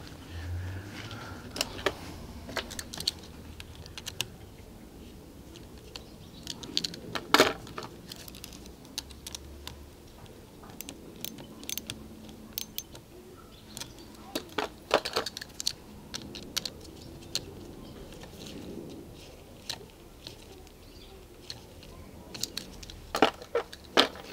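Light metallic clicks and ticks of a small hand tool tightening the acorn nut and clamp bolt on a mountain-bike hydraulic brake's master cylinder clamp, scattered and in small clusters, the sharpest about seven seconds in, around fifteen seconds and near the end.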